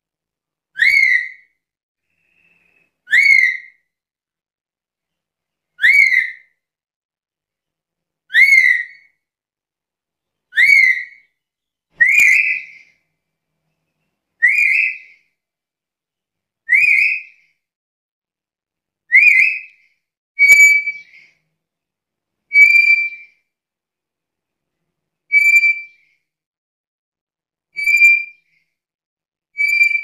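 Black-capped lory whistling short single notes, about one every two and a half seconds. The early notes swoop sharply upward. From about two-thirds of the way through they change to flat, steady whistles.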